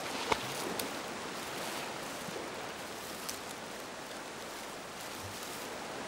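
Shallow river water rushing steadily past a grassy bank, with one short, sharp splash just after the start from a wounded salmon flapping in the shallows.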